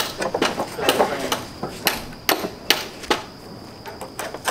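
Hammer blows on plywood concrete formwork, knocking the forms loose from the poured concrete: about eight sharp strikes in quick, uneven succession, a short pause, then one more near the end.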